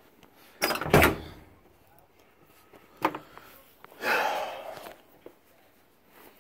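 Door of a 1971 Chevrolet C20 pickup being handled: a loud double thunk about a second in, a sharp click about three seconds in, then about a second of rustling.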